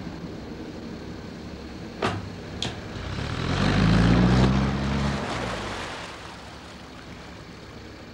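Narrowboat engine running with a steady low throb, swelling loud as the boat passes close about three to six seconds in, with water rushing at the bow. Two short, sharp falling sounds come about two seconds in.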